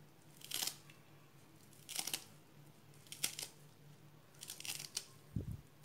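Kitchen knife slicing through a bunch of fresh coriander leaves and stems on a plate: a few crisp, crunchy cuts about a second apart, bunching closer together near the end, then a soft low bump.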